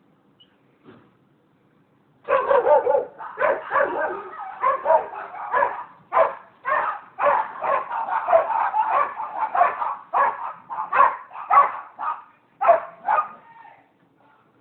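Dogs barking in a rapid, continuous run of loud barks, starting about two seconds in and stopping shortly before the end.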